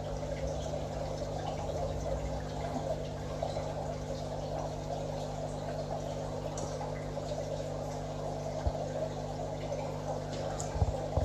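Aquarium filter running: a steady trickle of moving water over a constant low hum, with a brief knock about two-thirds through and a few more near the end.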